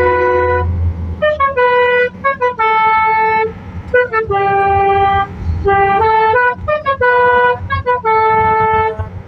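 Basuri telolet multi-tone bus horn playing a melody: a run of short and held notes stepping up and down in pitch, in phrases separated by brief gaps, over a low rumble.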